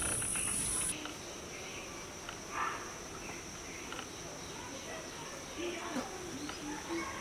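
Steady high-pitched insect trill, with a louder, higher buzzing in the first second that cuts off suddenly, and a few faint chirps scattered through.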